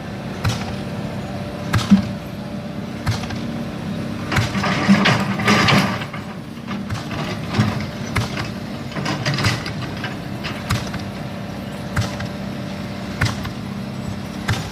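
Caterpillar 320D excavator's diesel engine running steadily under work, with scattered knocks and clanks from the machine and a louder, hissing stretch about five seconds in.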